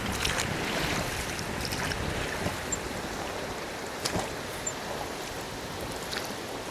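Steady rushing noise of water and wind, with a few faint clicks.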